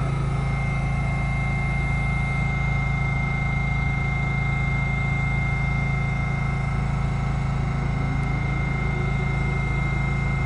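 An R68-family B train standing in the station, its onboard equipment giving a steady low hum with a thin, constant high whine above it.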